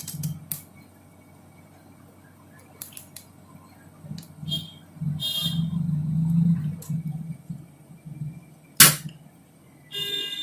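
Spring-loaded push-button desoldering pump at work on a circuit board: a few small clicks and a stretch of rubbing and handling, then one loud, sharp snap near the end as the plunger is released and sucks up the molten solder.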